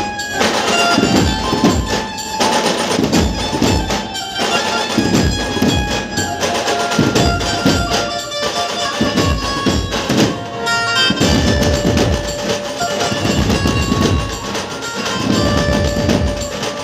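Dhumal band music played loud: heavy, steady drum beats under a held melody line.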